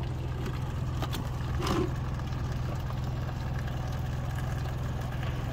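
Portable generator engine running steadily at low speed in its economy (efficient) mode while it warms up, an even low hum. One brief knock comes close to two seconds in.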